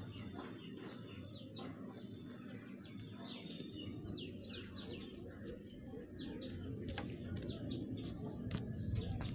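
Birds chirping in quick, repeated short calls, over a low steady background hum, with a few sharp clicks in the second half.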